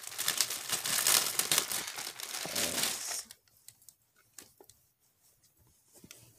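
Packaging crinkling and tearing for about three seconds as a T-shirt is pulled out of it, then softer rustling with a few light clicks.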